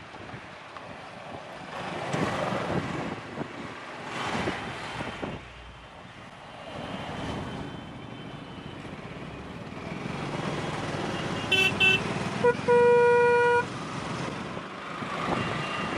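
Road and engine noise from a motorcycle riding in slow traffic. About twelve seconds in, a vehicle horn gives two quick toots, then a steady blast of about a second.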